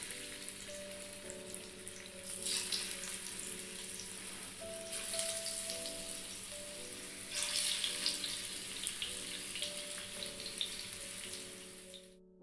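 Masala-marinated barracuda steaks sizzling in hot coconut oil, the sizzle swelling each time another piece is laid into the pan; soft background music plays underneath. The sound cuts off abruptly near the end.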